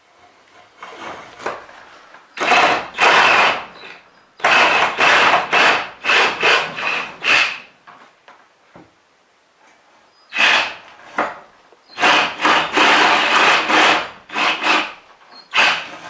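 Reciprocating saw cutting through an inch-thick board of a wooden door, in about six bursts of one to three seconds with short pauses between and a longer pause in the middle.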